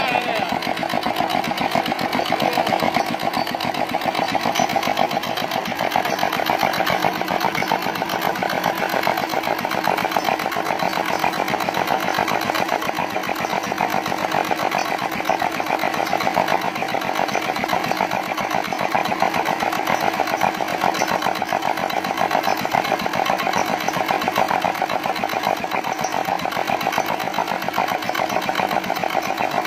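Freshly overhauled single-cylinder Dongfeng diesel engine running steadily at a fast, even chatter.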